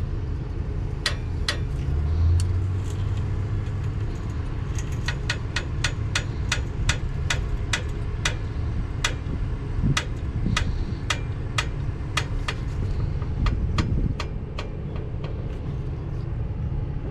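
A vehicle engine idling steadily, overlaid by a long run of sharp metallic clicks, about two a second through the middle: a jack being pumped to lift the truck off the concrete.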